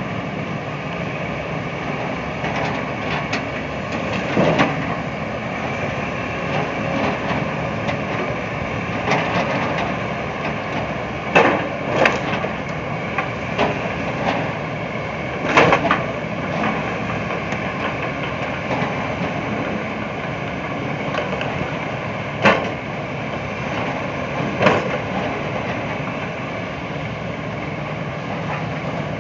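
Diesel excavator with a log grapple running steadily while loading pulpwood, with scattered knocks and clatters of logs being dropped and bumped onto the pile, about seven loud knocks spread through.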